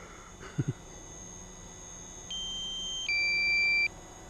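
Drone controller's low-battery warning beep: a steady single tone about two seconds in, followed at once by a higher two-note tone, each lasting under a second. It signals that the aircraft battery is down to about 17%.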